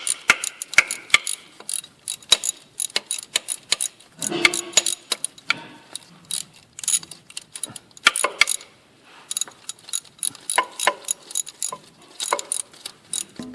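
Hand ratchet wrench clicking in quick runs with short pauses, as bolts are run in and tightened.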